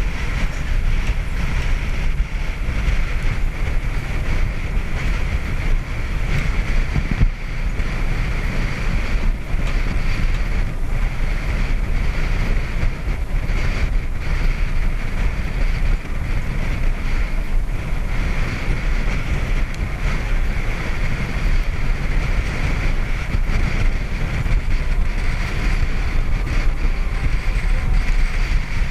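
Wind buffeting the microphone on the deck of a catamaran under sail, with the steady rush of sea water past the hulls.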